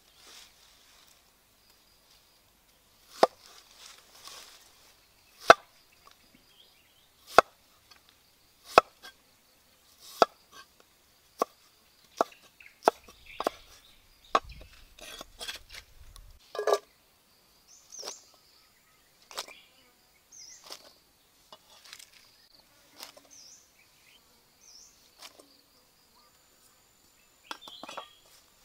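Large knife chopping banana stem on a wooden chopping block: a series of sharp chops about one to two seconds apart, growing softer and sparser after the middle. Faint high chirping runs in the background.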